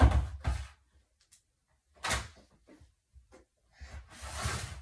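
Plastic laundry basket handled and moved across the floor: two loud knocks right at the start, a sharp knock about two seconds in, and a longer scraping sound near the end as it slides into place.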